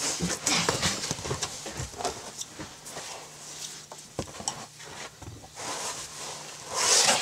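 Irregular knocks, bumps and rustling as small children are lifted and shuffled about on an upholstered couch, with a louder burst of rustling near the end.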